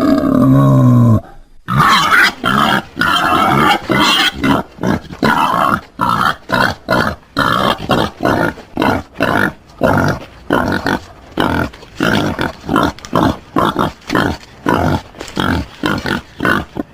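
Wild boar calling: a pitched call that falls in pitch over the first second, then a long run of short grunts, about two a second.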